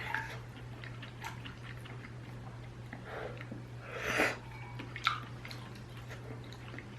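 Close-miked wet eating sounds of ramyun noodles being slurped and chewed, with small clicks throughout and a louder slurp about four seconds in, over a steady low hum.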